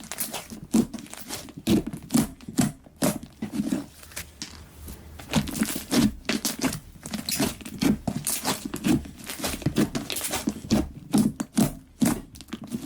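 Slime being squeezed and kneaded by hand: irregular sticky crackles, pops and squelches, several a second.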